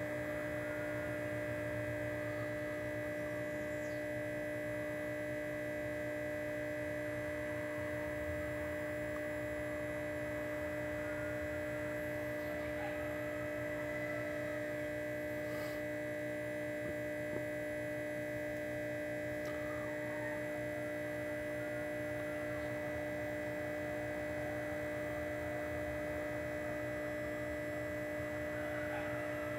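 Steady electrical hum made of several constant tones, unchanging throughout, with one faint click about two-thirds of the way through.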